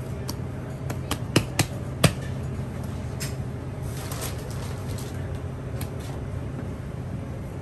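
Hands pressing and slapping a slab of brioche dough with butter folded in, on a stone countertop: a few sharp slaps about a second and a half in, over a steady low hum.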